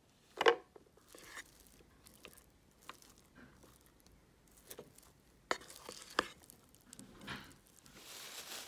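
Plastic rice paddle scooping and turning freshly cooked rice in a rice cooker's inner pot: soft scrapes and scattered light taps, the sharpest about half a second in. Near the end, a rustle of plastic wrap.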